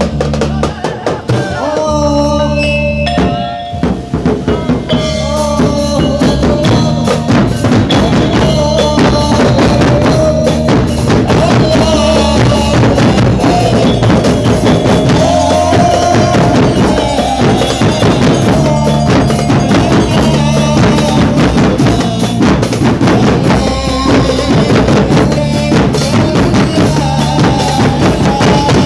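Loud music with a driving drum-kit beat, a steady bass line and a melodic line over it; the beat thins out briefly a second or two in and comes back fully about five seconds in.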